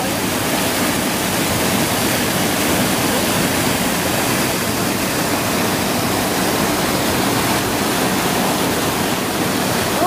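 Small waterfall pouring into a shallow pool: a steady rush and splash of falling water.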